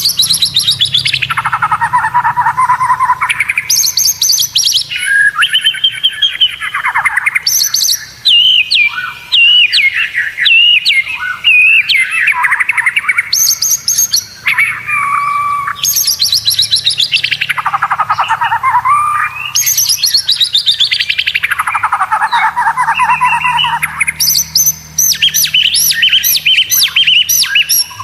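White-rumped shama singing without a break: fast rattling trills that slide down from high to low pitch, one phrase after another every second or two, then a run of high repeated notes near the end.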